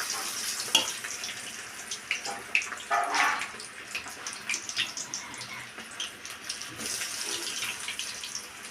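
Batter-coated cauliflower florets deep-frying in hot oil: a steady sizzle with many small crackles.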